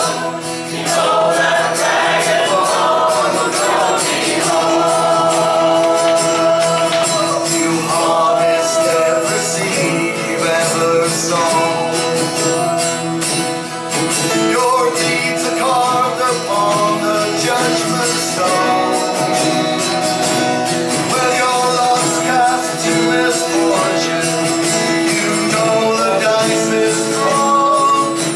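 Folk band playing a song live, with voices singing over sustained instrumental chords and a steady beat of high percussion.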